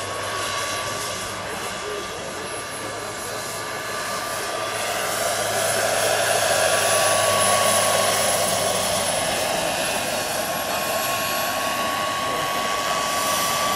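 Large-scale RC model AW139 helicopter in flight: its model gas-turbine engine gives a steady high whine over the rush of the rotor blades. The sound swells about halfway through as the helicopter passes close, then eases a little.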